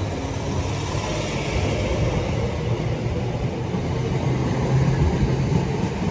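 Electric multiple-unit passenger train running past along the platform: a steady rumble of wheels on rail and carriage noise.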